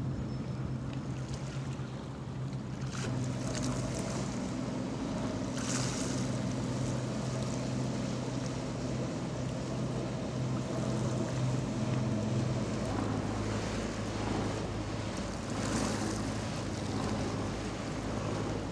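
Boat engines running steadily as motor boats pass on the water, with water wash and wind on the microphone. The engine drone changes about twelve seconds in.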